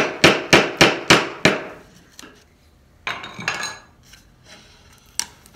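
Mallet rapidly striking a quarter-inch chisel, about three or four blows a second, chopping out dovetail waste between saw kerfs; the blows stop about a second and a half in. A brief rustle follows about three seconds in, and a single sharp click near the end.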